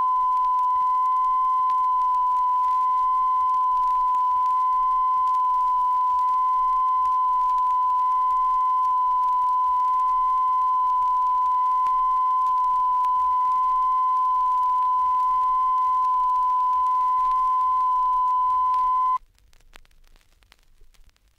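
Steady 1 kHz reference-level test tone played from a vinyl stereo test record, with faint overtones. It cuts off about 19 seconds in, leaving faint record surface noise with a few clicks.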